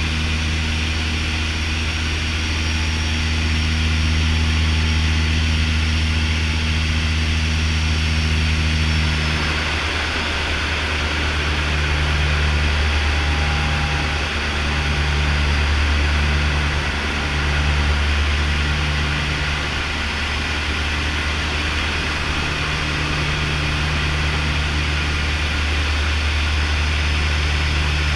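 Twin Pratt & Whitney PW123AF turboprops of a Canadair CL-415 heard inside the cockpit: a steady low propeller drone under a constant hiss. The low tone shifts about ten seconds in, and one hum then comes and goes in a slow pulsing.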